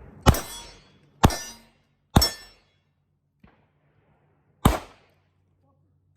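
Gunshots fired one at a time at the range: three about a second apart, then after a pause of over two seconds a fourth, and a fifth right at the end, each sharp with a short ringing tail.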